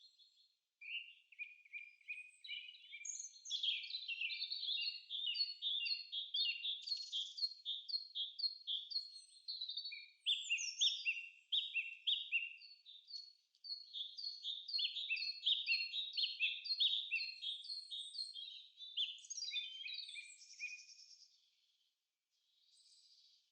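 A songbird singing long runs of short, falling chirped notes, about two a second, with a brief break about halfway through.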